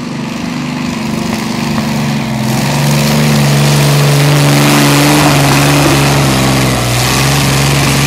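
Transmash V12 diesel engine of a BM Bison pulling tractor running flat out under load as it drags the weight-transfer sled. It grows louder over the first two to three seconds and then holds a steady pitch.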